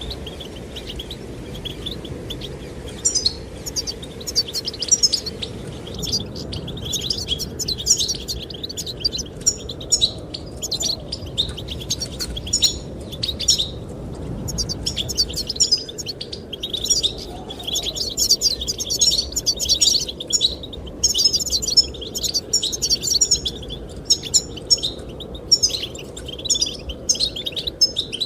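Goldfinches singing, a rapid run of high twittering and chirping notes that grows denser after the first few seconds, over a steady low rush of wind.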